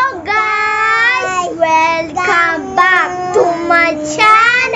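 A young girl singing in a high voice, holding long notes that slide up and down in pitch over several short phrases.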